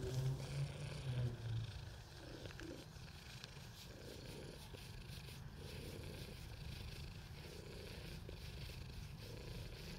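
Stray tabby cat purring steadily, held close in the arms; a low humming tone sits over the purr for the first second and a half.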